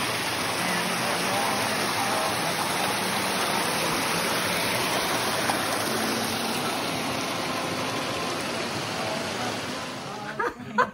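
Creek water rushing steadily down a small cascade over rock ledges. It cuts off shortly before the end.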